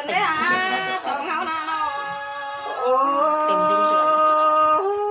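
A single voice singing an unaccompanied folk song, first in sliding, ornamented notes, then holding one long steady note for about two seconds before breaking off near the end.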